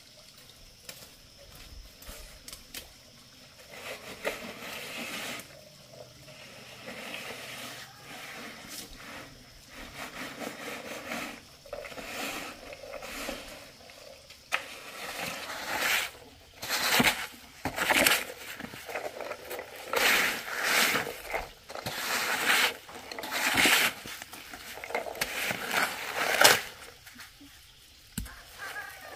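A wooden board dragged back and forth across freshly poured wet concrete, screeding it level: a series of wet scraping strokes that come more often and louder in the second half.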